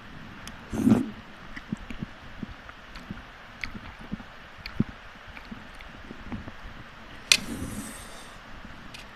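Close-up eating sounds of Maggi instant noodles and soup: wet chewing with many small clicks, a louder burst about a second in, and a sharp click followed by a short slurp near the end.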